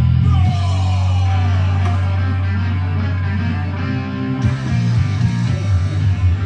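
Rock music playing: a held low bass note under guitar, turning busier and more rhythmic about four seconds in.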